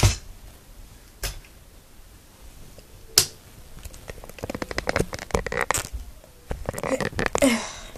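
Handling noise from a phone being pushed into a mini tripod's phone mount: a few separate knocks in the first seconds, then a dense run of clicks, taps and scrapes from about halfway on.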